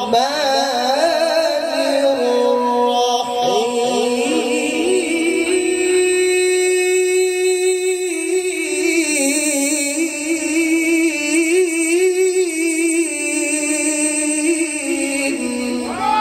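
A man's voice chanting in the melodic Quran-recitation style, amplified through a PA microphone. It sings short ornamented phrases, then holds one long note with a wavering pitch for about ten seconds.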